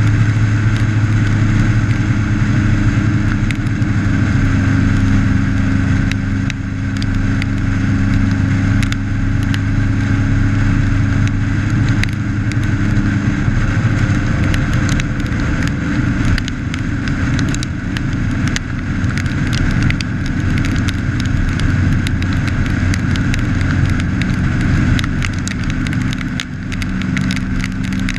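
Motorcycle engine running at a steady cruising speed, heard from an onboard camera with wind rushing over the microphone. The engine hum dips slightly in pitch about halfway through.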